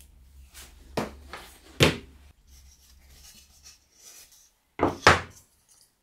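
Hard knocks and clunks in two close pairs, the first about a second in and the louder pair near five seconds in, with faint rubbing and handling in between, from hand work on a microwave-oven transformer being modified.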